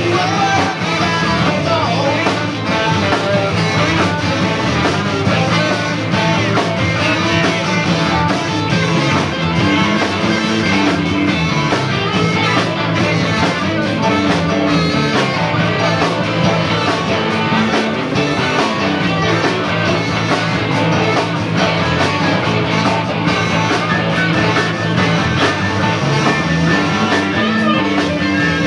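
Live rock band playing loudly and continuously, with electric guitars, bass guitar, keyboard and drums.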